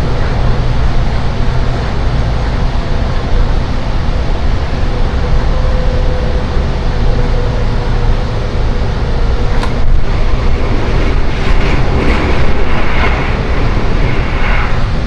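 Loud running noise of a Seibu 10000-series Red Arrow limited express train heard inside the passenger car: a steady low rumble of the wheels and running gear on the rails. There is a sharp click about ten seconds in, and a brighter hiss for a few seconds near the end.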